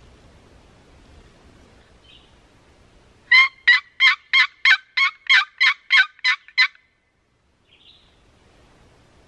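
Wooden turkey box call worked by hand, giving a loud run of about eleven evenly spaced yelps at roughly three a second that imitate a wild turkey.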